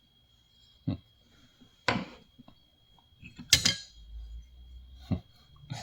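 Old hand tools being handled and set down on a table, giving about five separate clinks and knocks of metal and wood, the loudest about three and a half seconds in.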